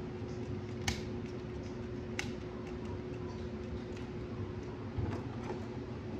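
Handling a plastic gel blaster toy rifle: two sharp plastic clicks, about one and two seconds in, and a few lighter ticks near the end, over a steady low hum.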